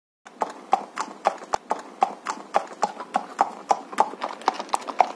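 Horse hoofbeats sound effect: a steady clip-clop of hooves walking, about three strikes a second, starting a moment in.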